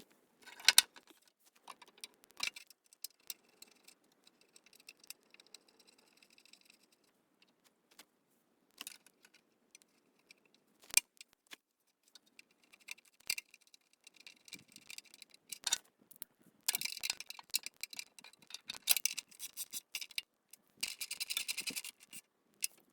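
Scattered metallic clicks, knocks and clatter of hand tools and bolts as the recoil starter and side cover are refitted to a Honda GX160 engine, with a couple of stretches of fast ticking in the second half.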